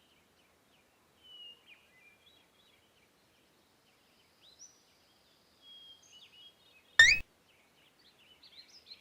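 Faint songbird chirping as a background ambience effect. About seven seconds in comes a brief, loud sound that rises in pitch.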